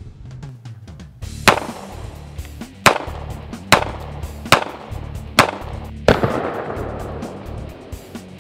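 Kahr Arms CW45 .45 caliber semi-automatic pistol firing six shots at an even pace, about a second apart, the last with a longer fading tail. Background music plays under the shots.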